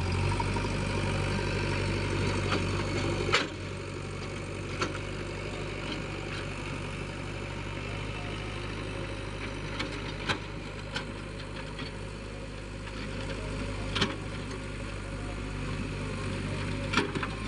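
JCB 3DX backhoe loader's diesel engine running steadily, easing down to a quieter idle about three seconds in, with a few short sharp clanks scattered through.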